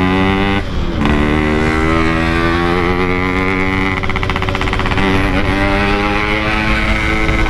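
Yamaha RX-King 135cc two-stroke motorcycle engine pulling hard through a Packing Power exhaust, revs rising, with a brief gap and drop in pitch just before one second in as it shifts up, then pulling steadily again.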